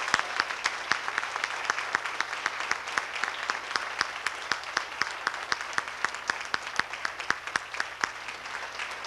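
Audience applauding: a dense, steady stream of hand claps, with some individual claps louder than the rest.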